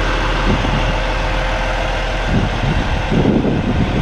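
2015 Kenworth T680 semi tractor, running without a trailer, its diesel engine rumbling as it pulls away, growing louder and rougher about two seconds in.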